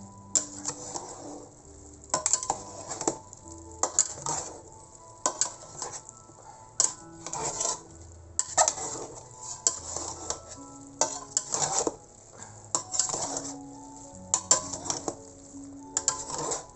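Metal tongs and a ladle clinking and scraping against a large stainless steel stockpot as sauce-coated rice noodles are tossed, with wet squishing in between and irregular strokes about once a second.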